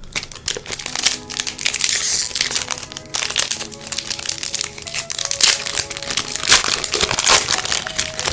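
Foil trading-card booster pack wrapper crinkling and crumpling in the hands as it is opened, with dense crackles throughout. Background music plays underneath.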